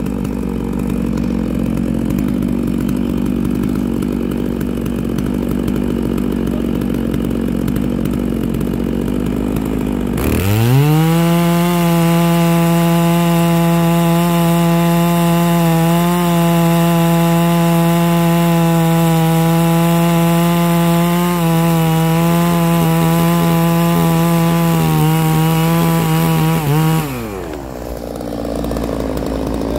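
Neo-Tec NS892 chainsaw with a 36-inch bar idling. About a third of the way in it revs to full throttle and holds steady through a long cut in a big log, then drops back to idle near the end as the cut finishes.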